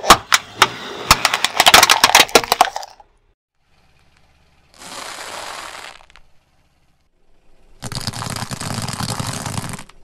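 Hollow plastic toys cracking and snapping apart under a car tyre: a rapid run of sharp cracks lasting about three seconds. Later come two stretches of steady rushing noise, one short and one about two seconds long.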